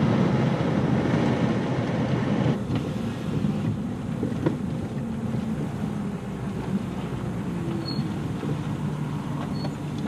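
RV engine and road noise heard from inside the cab: a steady low hum that eases off a little after the first couple of seconds as the vehicle slows toward a stop.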